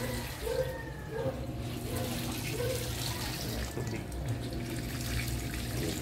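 Rinse water pouring out of the drain hose of a Panasonic NA-V10FX1 front-loading washing machine as it drains, over a steady low hum.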